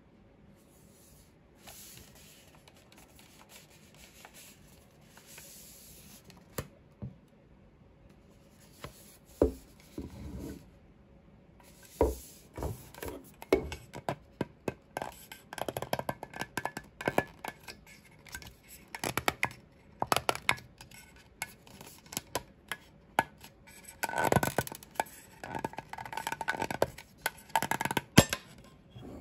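Hands prying the metal lid off a whisky gift tin. Skin first rubs softly on the tin, then come many small metallic clicks, scrapes and knocks as fingers work around the rim, with brief ringing from the tin near the end.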